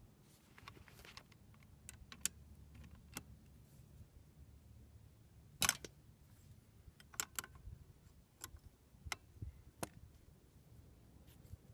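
Scattered metallic clicks and clinks of hand tools: a torque wrench's socket being fitted onto a scooter's variator nut and pulled tight against a variator holder tool. The sharpest clink comes about halfway through.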